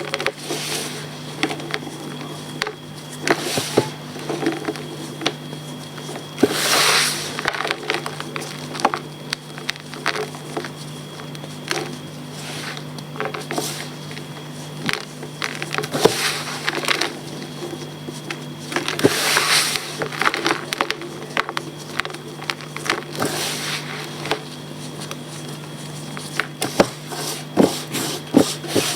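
Blocks of reformed gym chalk being crumbled, giving many small crackles and snaps with two longer crunching crumbles, about 7 seconds and 19 seconds in. A steady low hum runs underneath.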